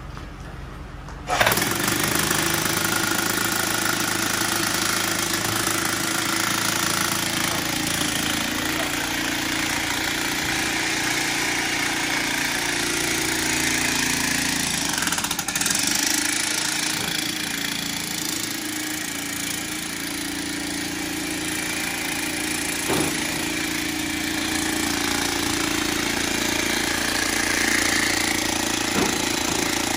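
Electric demolition hammer running continuously as it hammers an earth rod down into the ground. It starts abruptly about a second and a half in.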